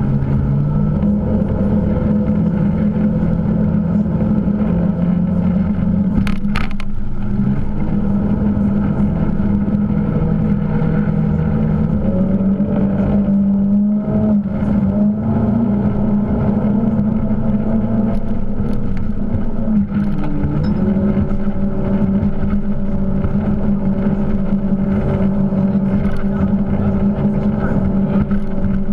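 Motorboat engine running steadily, its note shifting slightly a few times.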